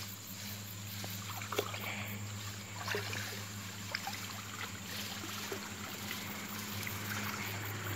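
Swamp water splashing and sloshing as a person wades and sweeps a hand net through it, with scattered small clicks and splashes. A steady low hum sits underneath.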